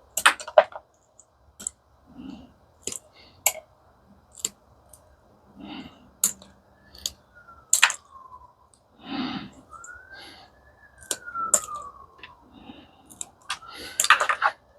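Irregular clicks and clinks of hand tools and small metal parts being handled and snipped, a sharp knock every second or so, with a louder cluster near the end.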